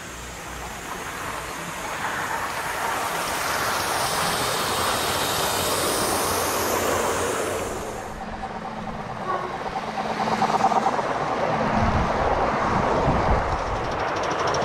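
Gauge 1 model train running on garden railway track: wheels rolling on the rails, growing louder over the first few seconds. The sound changes abruptly about eight seconds in.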